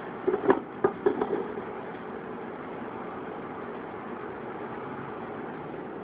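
A glass measuring cup set down on a tiled counter: a quick run of knocks and clinks about half a second to a second and a half in, over a steady low hum.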